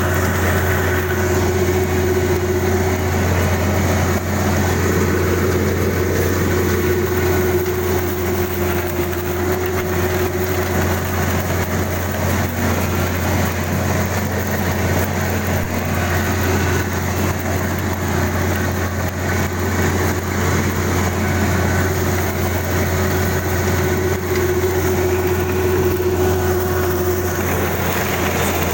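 Kubota DC-35 combine harvester's diesel engine and machinery running steadily with a constant low hum.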